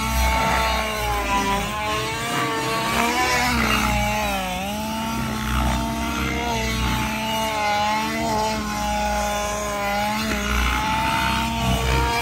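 Blackout Mods Spectre V2 gasser RC helicopter's two-stroke gas engine, on its regular muffler, running hard through aerobatics. Its note dips and climbs as the maneuvers load and unload the rotor, with a marked dip about four seconds in.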